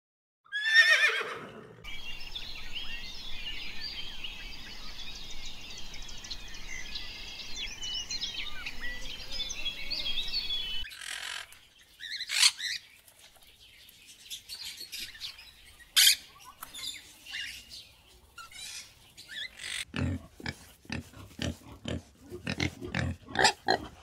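A run of different animal calls, one after another: a single falling call about a second in, then about nine seconds of dense, high chirping chatter that cuts off suddenly, then scattered sharp calls, and a quick series of short low calls near the end.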